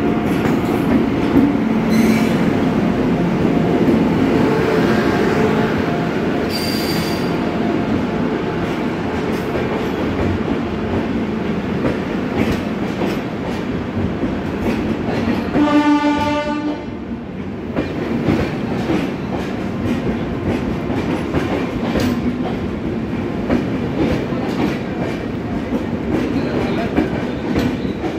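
Passenger coaches of a long train rolling steadily past, with wheels clattering and rumbling on the track. About halfway through, a horn sounds one held note for over a second.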